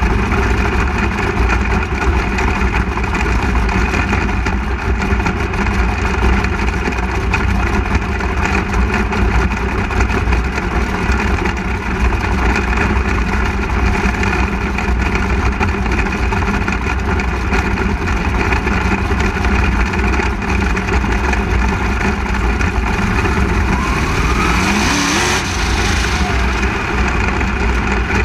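A 360 sprint car's V8 engine running at racing speed, heard from onboard the car: a loud, steady drone. A brief rising note comes near the end.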